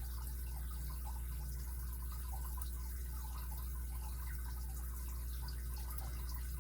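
Faint, irregular light ticks and scrapes of a lock pick working the pin stack of a Kryptonite padlock's core under light tension, with the lock in a false set and the pins unusually stiff. A steady low hum runs underneath.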